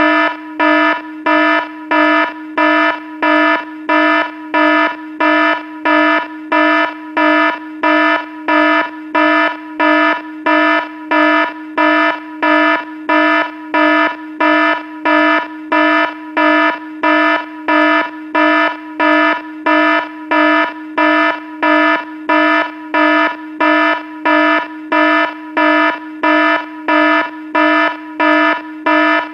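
Red-alert warning alarm sound effect: a loud, buzzy electronic alarm tone at one steady pitch, pulsing on and off evenly about three times every two seconds.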